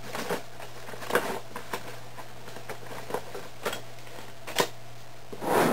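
Scattered light clicks and taps, irregularly spaced, of small objects being handled at a workbench, over a steady low hum.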